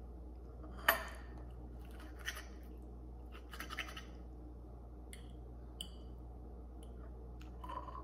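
A metal fork scraping and clinking on a plate as food is cut and picked up: several short scrapes spread through, with one brief ringing clink near the middle, over a low steady hum.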